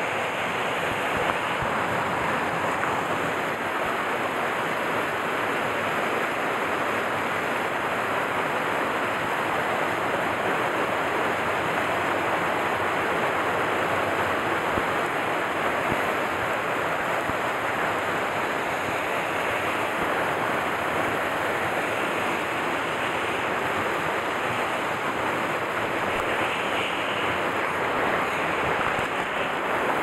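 Mountain stream rushing over rocks and small cascades: a steady, even rush of water.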